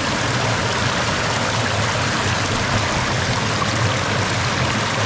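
Small mountain stream rushing and splashing over rocks, loud and steady, with a plastic bottle held in the flow to fill it.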